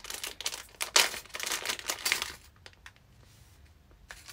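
Packaging crinkling and rustling as it is handled and opened, dense for about the first two and a half seconds, then only a few faint rustles.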